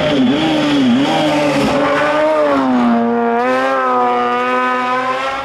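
Hillclimb race car's engine running at high revs. Its pitch wavers, falls about two and a half seconds in, then rises again and holds steady.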